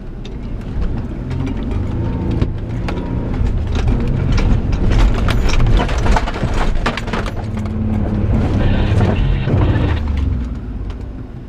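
Isuzu Trooper's engine working hard under load up a steep, rutted sand hill climb, with repeated knocks and rattles as the suspension and body jolt over the bumps. The engine sound swells about a second in and eases off near the end.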